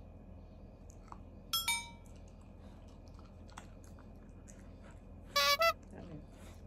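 A black Shiba Inu chewing a small dog treat: faint crunching clicks. A short high-pitched squeak comes about a second and a half in, and a louder double squeak near the end.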